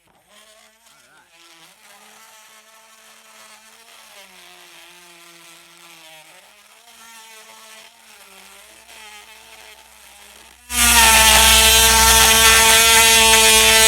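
Harbor Freight Drill Master rotary tool's small motor whining steadily as it drills slowly into plastic, its pitch sagging briefly under load: the tool has little power and bogs down when pushed. Faint at first, then much louder from about eleven seconds in.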